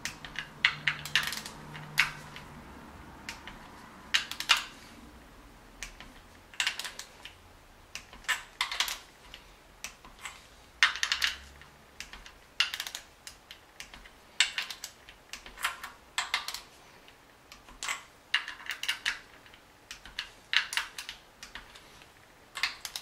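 Torque wrench's ratchet clicking in short quick runs every second or two as the 10 mm VANOS bolts on a BMW M52 engine are tightened to 10 Nm.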